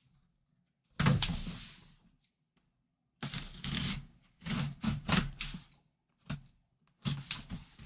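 A cardboard box being opened: a loud thump about a second in, then a run of short scraping and knocking noises as a blade cuts along the taped seam and the cardboard is handled.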